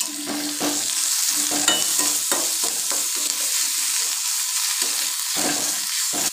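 Onion and spice pastes frying in hot mustard oil in a metal kadai: a steady sizzle, with a metal spatula scraping and stirring against the pan about twice a second.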